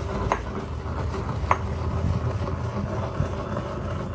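Stone mortar and pestle grinding dry-roasted fenugreek seeds and cumin: a steady rough grinding rumble, with two sharp clicks of the pestle striking the stone about a second apart and a lighter one later.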